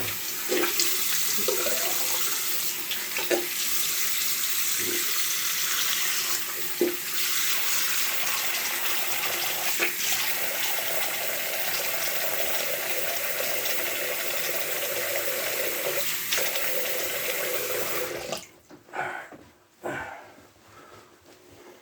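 Bathroom sink faucet running steadily with a few short splashes of water as a face is rinsed, the tap shut off abruptly about eighteen seconds in.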